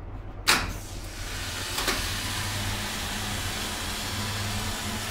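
Hydraulic elevator valve block: a loud clack about half a second in, then a steady hiss of hydraulic oil flowing through the valves, with a second, softer click about a second later. A low hum runs underneath throughout.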